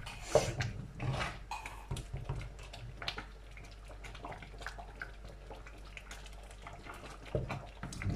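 Wooden spoon stirring moist jaggery rice in a steel pot, with irregular soft scrapes and knocks against the pot.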